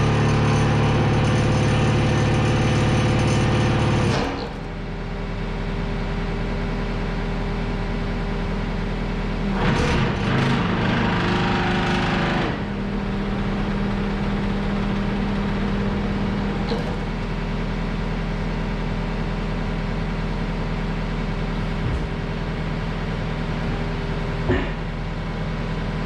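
John Deere 323E skid steer's diesel engine running with the vibratory roller attached. It is loud and steady until it drops off sharply about four seconds in, gets louder again for a couple of seconds around ten seconds in, then runs steadily at the lower level.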